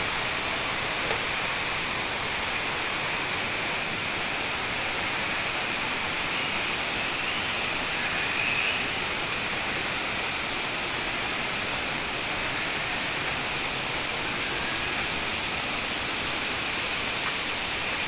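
Steady rush of a waterfall and its rocky stream: an even, unbroken hiss of falling and running water.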